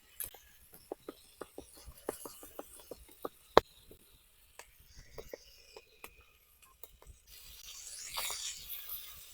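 Irregular light clicks and taps of objects being handled, with one sharp knock about three and a half seconds in, then a brief scraping rush near the end.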